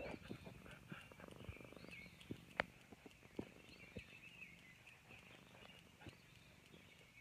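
A black cat purring softly close to the microphone, with a few light clicks and rustles of handling.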